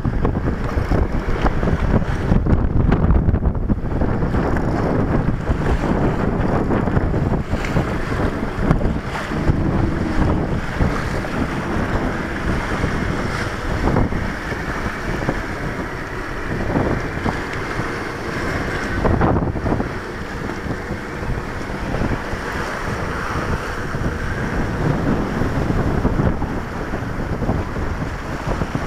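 Strong wind buffeting the microphone on the deck of a gaff-rigged sailing yacht under way, over the rush of the sea along the hull.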